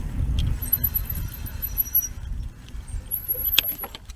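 Wind and rolling noise from riding a bicycle, with a thin, very high-pitched squeal that comes twice and a few sharp clicks near the end.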